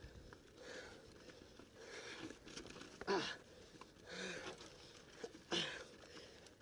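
Mountain biker breathing hard and rhythmically while riding, a heavy breath about every second or so. A couple of the exhales end in a short falling grunt.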